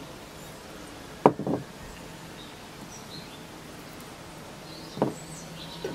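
Small glass jar and its metal lid knocking against each other and the table: two quick clinks a little over a second in and one more near the end as the lid goes back on. Faint birdsong chirps behind.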